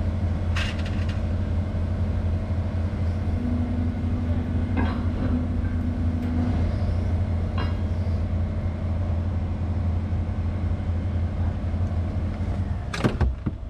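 Excavator diesel engine running steadily, heard from inside the cab, with a higher hum that swells for a few seconds in the middle. A few faint knocks come through, then a sharp knock near the end, after which the engine's low drone drops away.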